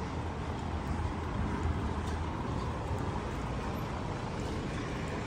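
Steady low rumble of city street ambience, a distant traffic hum with no distinct events.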